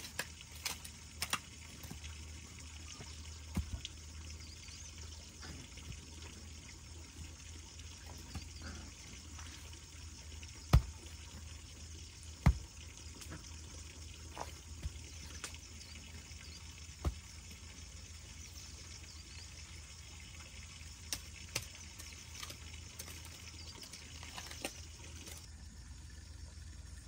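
Occasional knocks and scrapes of river stones being set into loose red soil by hand, with a hoe digging earlier on. Two sharper knocks come about halfway through, a second and a half apart.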